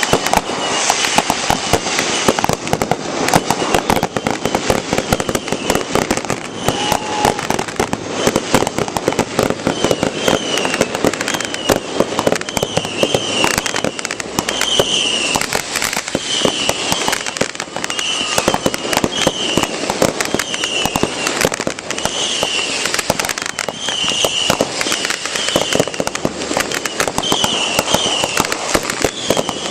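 Fireworks display: a dense, unbroken crackling and popping of many bursts. From about ten seconds in, short high chirps repeat roughly once a second over the crackle.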